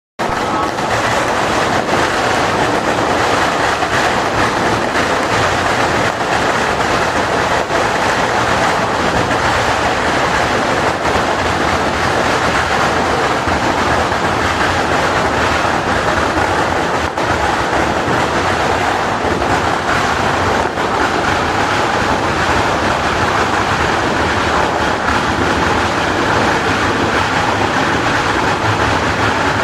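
Fireworks going off in a dense, continuous barrage, a steady unbroken crackle with no single bang standing out.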